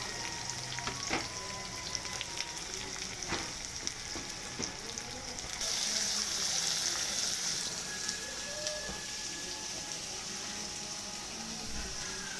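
Masala frying in a kadhai with a steady sizzle that gets louder about halfway through, with a few sharp taps of a stirring spoon against the pan in the first half.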